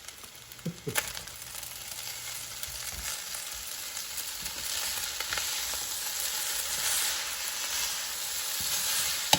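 Fried rice sizzling in a hot pan as it is stirred, sweet soy sauce just added, with an occasional knock or scrape of the utensil against the pan. The sizzle grows gradually louder.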